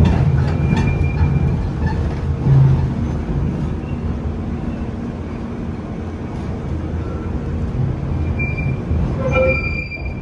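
Bakerloo line 1972 Stock tube train running, with a steady low rumble and brief high wheel squeals about a second in and again near the end.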